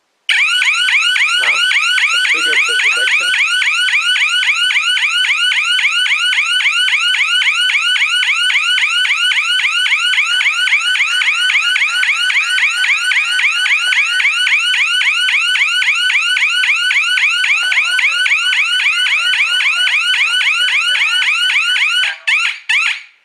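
GSM home alarm siren sounding a loud, rapidly repeating sweeping tone, set off by the motion detector, which is set as an instant zone with no entry delay. It cuts off near the end.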